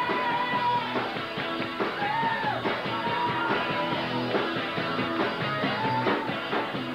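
Rock band playing live: electric guitars and drums, with a lead line of long held notes that arch up and back down.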